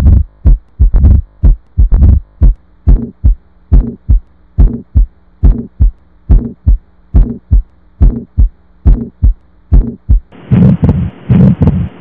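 Recorded heart sounds heard through a stethoscope, played as teaching examples of abnormal heart sounds: mitral stenosis and a benign murmur. They come as an even run of low thumps, about two to three a second, over a faint hum. Near the end a different recording cuts in, with a steady hiss and louder beats: the atrial septal defect example.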